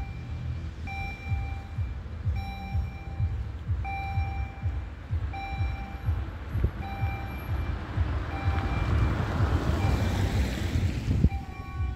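A car drives up and passes close by, its tyre and engine noise swelling to a peak about ten seconds in and then dropping away sharply. Wind buffets the microphone throughout, and a short electronic warning beep repeats about every three-quarters of a second.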